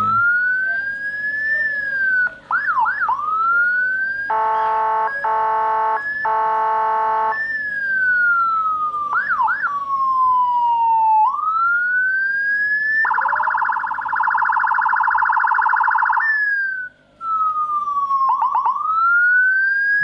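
Whelen HF 60-watt, 12-volt siren module sounding loudly through a chrome horn speaker and switched between tones. A slow wail rises and falls, quick yelp sweeps come in a few times, there are three short horn blasts a few seconds in, and a harsh buzzing tone holds for about three seconds past the middle.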